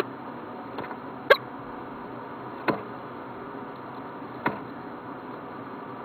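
Four sharp taps about a second and a half apart over a steady background hiss: a peregrine falcon's beak striking against the wooden nest-box ledge as it plucks and tears at a green woodpecker carcass.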